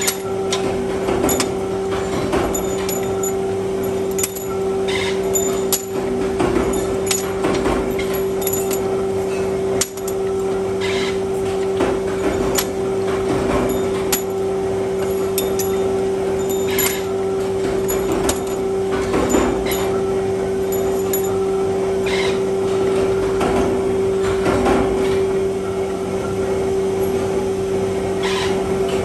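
Steady electric machine hum under irregular metallic clinks and knocks as steel bolt blanks are handled and set into a machine's die fixture.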